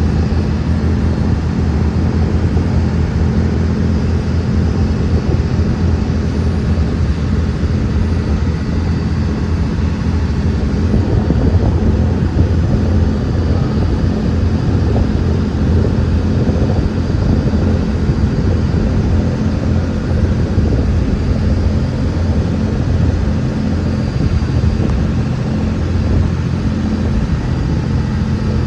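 Steady low rumble of a running engine, unbroken throughout, with no speech.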